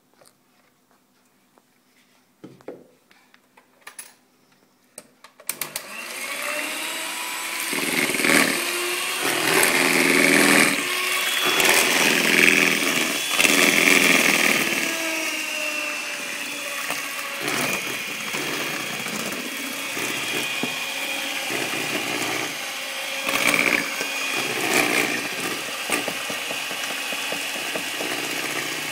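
A few light knocks, then about five seconds in an electric hand mixer starts and runs steadily, its twin beaters churning thick cake batter as flour and milk are worked in, the motor note rising and falling with the load.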